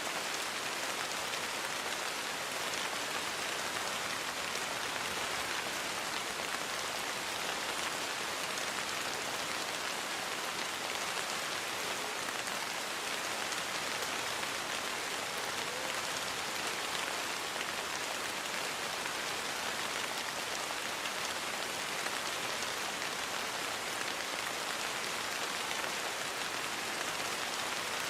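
Steady rain falling, a dense even hiss of drops with fine pattering, without change in strength.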